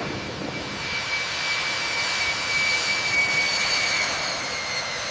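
Jet aircraft engine running steadily: a rushing noise with a high, steady whine over it.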